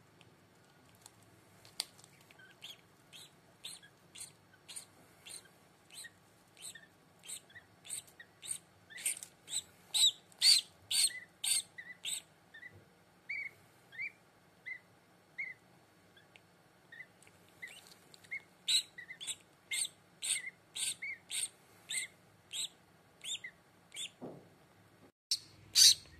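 Hatching duckling peeping: a long run of short, high peeps, about two a second, with a short pause about two-thirds of the way through. A dull knock sounds just before the end.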